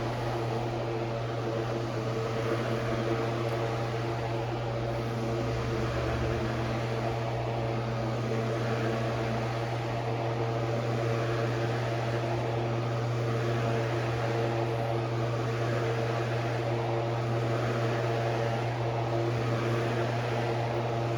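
Dog-shaped desk fan running on high: a steady motor hum with a rush of air, blowing an unpowered ceiling fan round.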